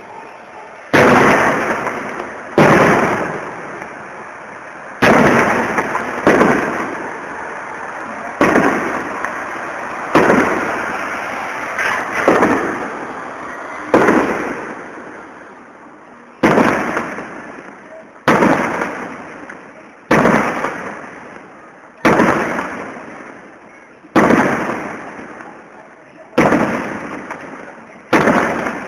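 A fireworks display: aerial shells bursting with loud bangs about every two seconds, each followed by a long, slowly fading rumble and echo.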